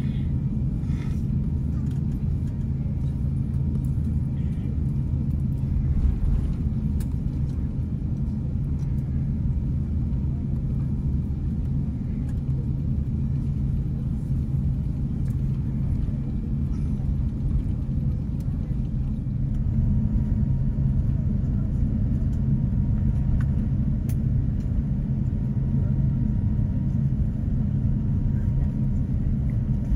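Steady low rumble inside the cabin of an Airbus A350-900 taxiing before takeoff: its Rolls-Royce Trent XWB engines at low thrust, together with the cabin air, with a few faint taps.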